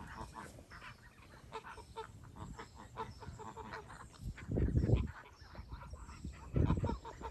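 A flock of domestic geese calling as they walk, a steady run of short honks and chattering calls. Twice in the second half a louder low rumble briefly covers them.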